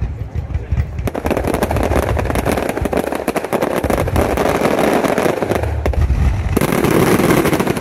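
Fireworks display: dense, rapid crackling of many small bursts from glittering crackle stars. The crackling sets in about a second in and keeps going, growing hissier near the end.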